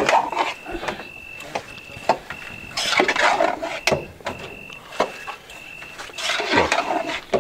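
Long metal spoon scraping and knocking against a large aluminium pot as a big batch of soaked poha is stirred and mixed, in irregular bouts of scraping and clinks. A faint high tone pulses about twice a second behind it.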